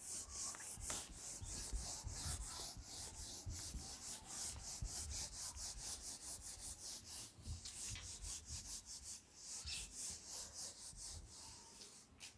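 Rapid, rhythmic scratching and rubbing strokes on a classroom board, about four to five a second, in an unbroken run.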